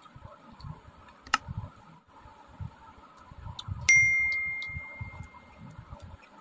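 A sharp click about a second in, then a single bright bell ding about four seconds in that rings out and fades over about two seconds: the notification-bell sound effect of a subscribe-button animation.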